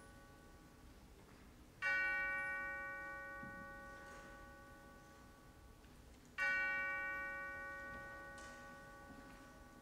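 A brass handbell struck twice, about four and a half seconds apart. Each stroke rings on and fades slowly, and the tail of an earlier stroke dies away at the start.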